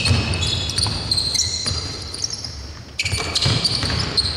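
Basketball game play: sneakers squeaking in short high chirps on a hardwood court, with a basketball thudding off the floor. The squeaks come thickest at the start and again from about three seconds in.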